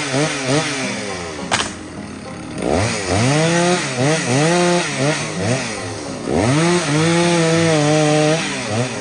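Large two-stroke chainsaw revving up and down in repeated throttle blips, twice held at high revs for a second or two before dropping back.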